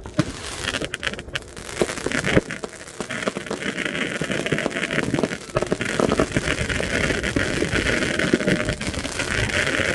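New Year's Eve fireworks: a dense, continuous crackle of many rockets and firecrackers going off, with scattered sharper bangs, growing louder and denser a few seconds in.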